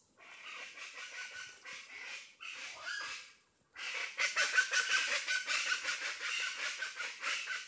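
Plain chachalaca calling: rapid, repeated grating calls in long runs, with a short break about three and a half seconds in before the calling resumes.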